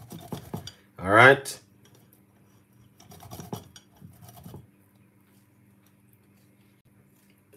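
Fresh ginger rubbed on a flat metal hand grater: quiet rasping strokes in two short runs, one at the start and another from about three seconds in, then nothing.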